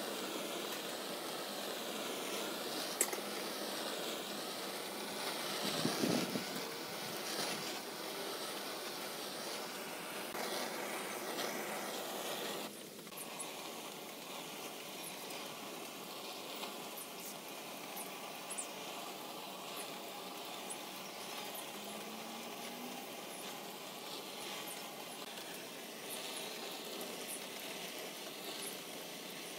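Handheld butane torch on a gas canister burning with a steady hissing rush as its flame scorches the pine frame. The sound drops slightly and changes abruptly about thirteen seconds in, then carries on steadily.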